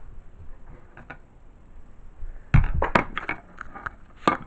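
Handling noise: a faint click about a second in, then a quick run of knocks and clicks about two and a half seconds in, and another knock near the end, as the camera is carried and things are moved about.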